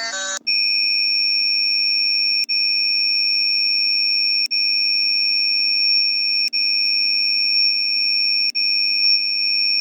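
A sped-up emergency alert attention tone: a steady, high-pitched electronic alarm tone that starts about half a second in, as fast music cuts off. It runs on with brief drops about every two seconds.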